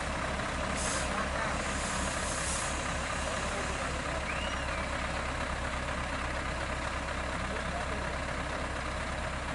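Heavy diesel truck engines running hard under load, a steady low drone, as a Scania tractor unit works to pull a stuck, timber-laden Hino truck out of a ditch. Two short hisses sound about one and two seconds in.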